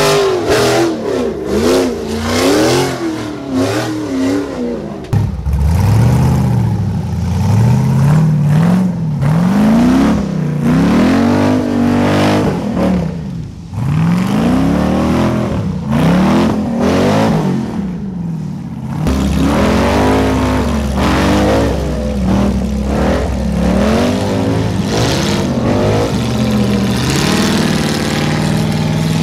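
Off-road racing buggy engines revving hard under load while climbing a muddy slope. The pitch swings up and down about once a second as the throttle is worked. The sound changes abruptly about five seconds in and again near nineteen seconds.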